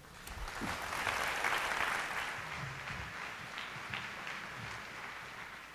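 Audience applauding, swelling over the first second or so and then slowly dying down.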